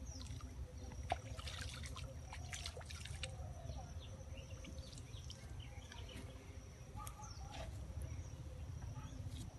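Outdoor ambience: scattered faint bird chirps and a thin steady high tone over a low steady rumble, with one sharp click about a second in.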